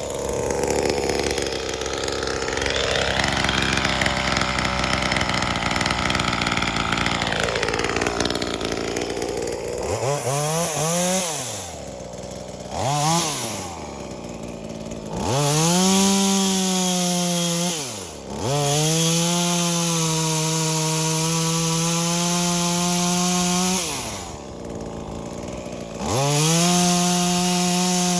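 V-Modest 2511T, a clone of the Echo 2511T two-stroke top-handle chainsaw, cutting hardwood under load for about ten seconds. Then it revs freely: a few quick throttle blips, then held at high revs in long stretches, dropping back to idle twice.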